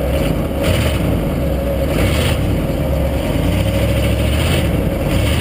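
Truck engine running under throttle, surging in several short bursts of revving as the truck tries to pull away through snow; it is stuck and does not get moving.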